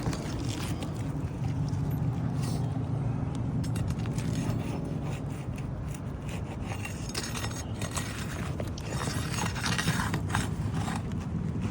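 A metal shingle-removal tool scraping and prying under brittle old three-tab asphalt shingles to work the nails loose, in scattered short strokes that come thicker in the second half. A steady low rumble runs underneath.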